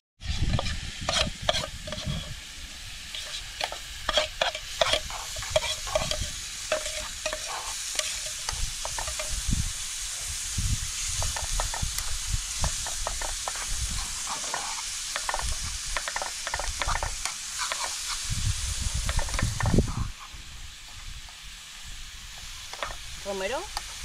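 Grated carrots sizzling as they fry in a small pan on a portable gas camping stove, with a utensil scraping and clinking against the pan as the sauce is stirred. About twenty seconds in, the stirring strokes thin out and the sizzle gets quieter.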